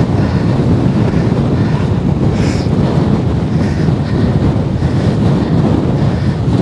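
Strong wind buffeting the camera microphone: a loud, steady, rumbling roar with no break.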